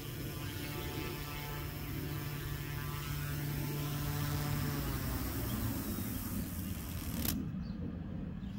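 Small electric RC helicopter's rotor with 3D-printed resin blades, running with a steady hum that shifts in pitch as it comes down low. About seven seconds in there is a sharp crack as the blades cut into the grass, and the high whine drops away.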